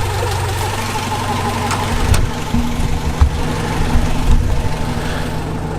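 Car engine idling steadily, with uneven low rumbling from about two seconds in.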